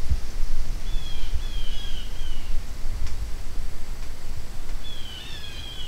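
Wind buffeting the microphone as a steady low rumble, with a songbird calling in short runs of descending whistled notes, once about a second in and again near the end.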